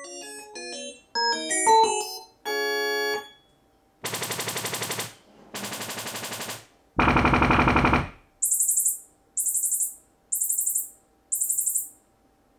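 Sony HT-A7000 soundbar system playing its Sound Field Optimization calibration signals. It opens with a few quick chime-like notes and a held tone. Then come three buzzy test-tone bursts of about a second each, and four short high-pitched chirps about a second apart.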